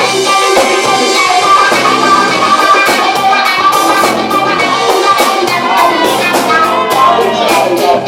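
Live funk band jamming at a sound check: electric guitar and drum kit playing loudly and without a break.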